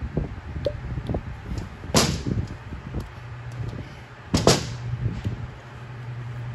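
Light knocks and clicks of a turbocharger and small parts being handled on a workbench, with two short sharp noises about two seconds and four and a half seconds in. A low steady hum comes in about halfway.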